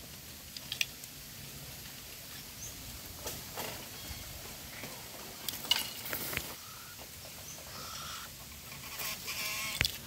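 Dry leaf litter and twigs rustling and crackling in scattered bursts as a pet mongoose forages and scurries over the ground into undergrowth, with the loudest bursts about six seconds in and near the end.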